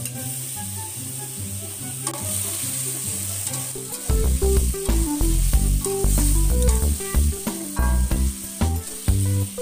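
Salted shark, tomato and spring onion sizzling in oil in an aluminium wok, stirred with a metal spatula that scrapes the pan. Background music plays underneath, with a loud bass line coming in about four seconds in.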